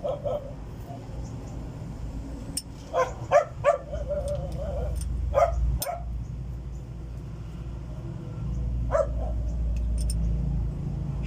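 A dog barking in short runs, three quick barks, then two, then one more, over a steady low drone.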